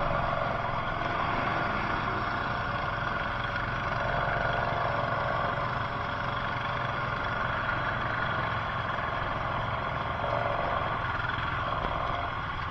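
ATV engine running steadily, with no marked revving or change in pitch.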